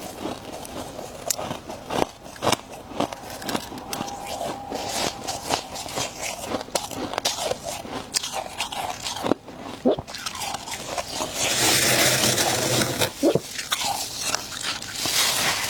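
Close-up crunching as a person bites and chews frost and ice, in many sharp irregular crunches. About three quarters through comes a louder, continuous stretch of dense crunching.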